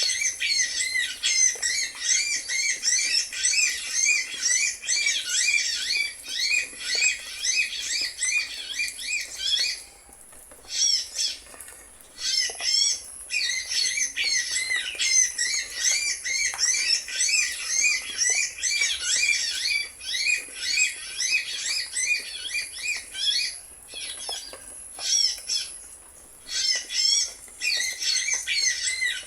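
Birds chirping in a fast, almost unbroken stream of short high notes, breaking off briefly a few times.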